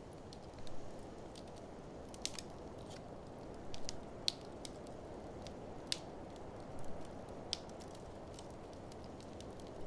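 Wood fire in an open fireplace crackling, with irregular sharp pops scattered over a steady low rushing background.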